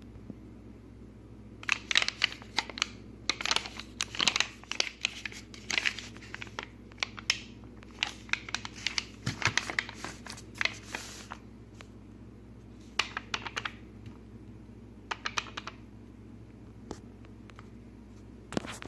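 Close-up handling noise of small plastic parts: dense runs of sharp clicks and crinkling, then shorter clusters later on, over a steady low hum.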